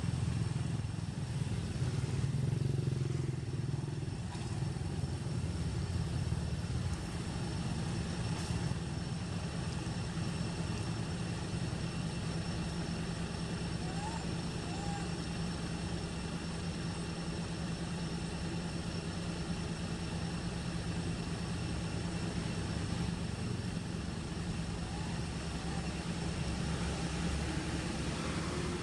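Steady low rumble of distant vehicle traffic, with a faint steady high whine over it. About halfway through, two faint short squeaky calls come from a young macaque.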